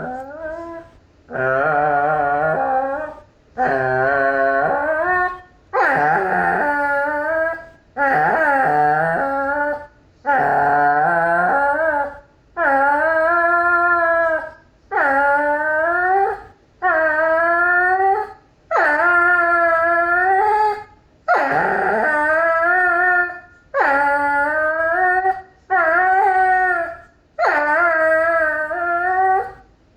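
A dog howling over and over: about fourteen long, wavering calls, each lasting a second or two, with short pauses between them.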